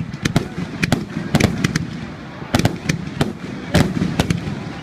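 Fireworks going off: a dense run of sharp, irregular cracks and pops, several a second, some louder than others.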